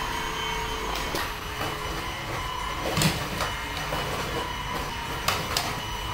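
Cordless stick vacuum cleaner running steadily on a tiled floor, its motor giving a constant whine. A few sharp knocks from handling cut through it, the loudest about halfway through and two close together near the end.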